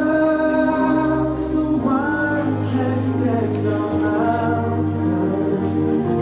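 Music with a choir singing long held chords over a low bass line that changes note every couple of seconds.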